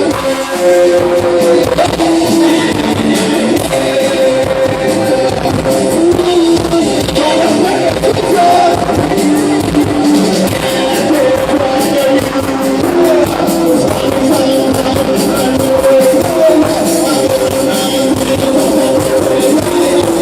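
A band playing a song, with guitar and a singing voice holding long notes.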